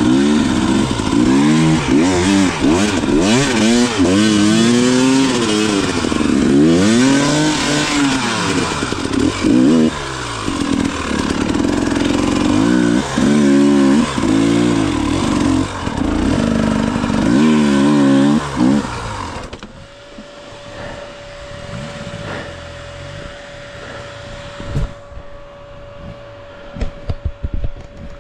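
Dirt bike engine being ridden hard, revving up and falling off again and again every second or two. The loud engine sound stops suddenly about two-thirds of the way through. It leaves a quieter low engine sound with a steady faint whine and a few sharp knocks near the end.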